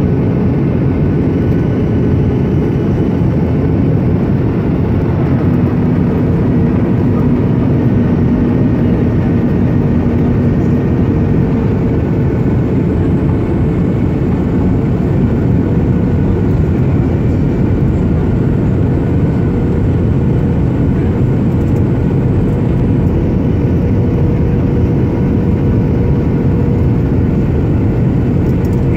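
Steady, loud cabin noise inside a Boeing 737-800 heard from a window seat over the wing during its descent: the drone of its CFM56-7B turbofan engines blended with the rush of air along the fuselage, with a faint steady hum running through it.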